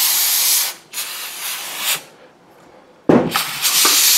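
Aerosol carburetor cleaner spraying onto a motorcycle carburetor in hissing bursts: a long spray that stops under a second in, a weaker one after it, a short pause, then a knock of the metal carburetor body being moved about three seconds in and another strong spray.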